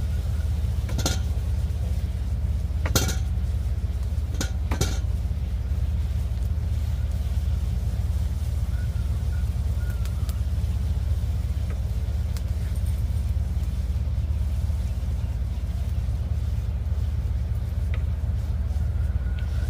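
A steady low rumble runs throughout. Over it, a metal utensil clinks against a cooking pot four times in the first five seconds.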